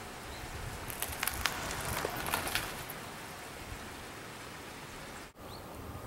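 Steady outdoor hiss with a run of sharp clicks and crackles about one to two and a half seconds in, and a couple of faint, short rising chirps from a small bird.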